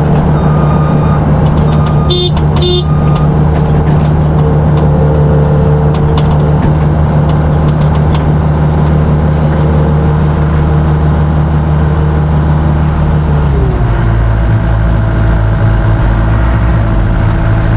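Large diesel engine of harvest farm machinery running steadily under load, with a few short beeps about two seconds in. Near the end the engine note drops to a lower, steady pitch as it throttles down.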